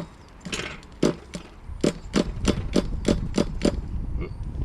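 Pull starter on a nitro RC engine being pulled over and over, turning the engine with the exhaust held shut so it draws fuel in to prime. A run of sharp clacks, about three a second.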